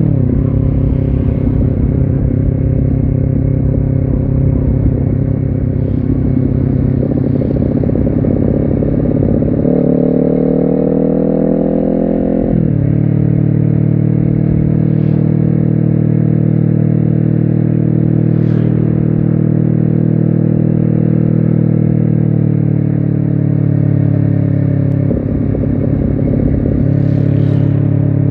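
Honda CBR250RR's parallel-twin engine running under way at steady revs. About ten seconds in it climbs in pitch, then drops sharply on an upshift a little before halfway, and it holds steady after that.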